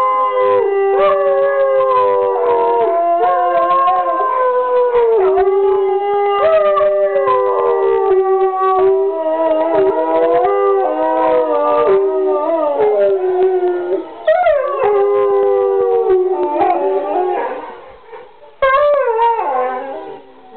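A pack of sighthounds, salukis and borzois, howling together. Several long howls at different pitches overlap, sliding up and down. The chorus fades out near the end, then one more howl starts loudly and falls in pitch.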